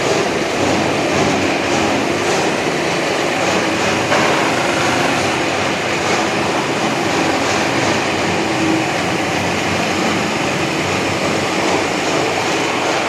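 MAS VR4 radial drilling machine running, a steady mechanical drone with a faint constant hum and a few light ticks.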